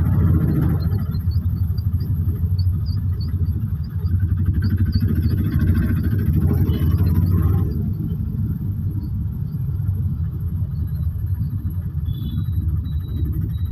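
Auto-rickshaw's small engine running as it drives along, heard from inside the open cab as a steady low rumble. Faint short high chirps sound over it through about the first half.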